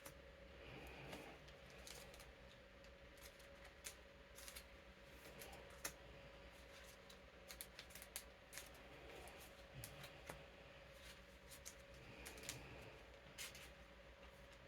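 Faint rustles and light, scattered clicks of playing cards being handled and slid into plastic card sleeves, over the steady hum of an electric fan.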